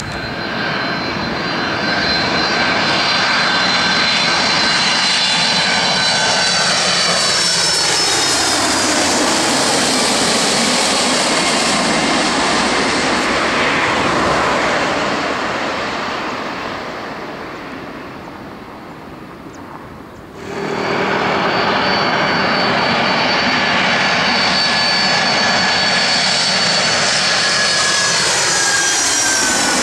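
Boeing 767 airliner's twin jet engines passing low on final approach: a loud, steady jet noise with a high whine that falls in pitch as the aircraft goes by and then fades. About two-thirds through it cuts suddenly to another 767 approach, loud again with its high whine.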